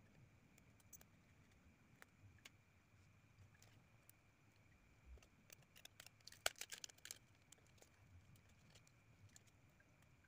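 Near silence broken by faint small clicks and taps of a smartphone being pried open with a razor blade and its plastic parts handled. The clicks come in a quick cluster about six and a half seconds in.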